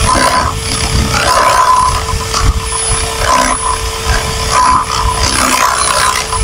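Electric drill boring a lock-body mortise into the edge of a wooden door through a drilling jig. The motor whine holds steady while the bit grinds through the wood in uneven surges.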